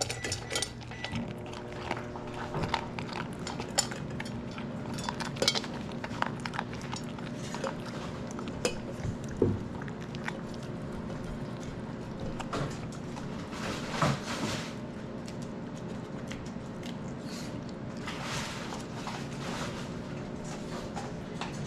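A dog eating from a food bowl: scattered clinks and clicks of the bowl and chewing, over a steady low hum.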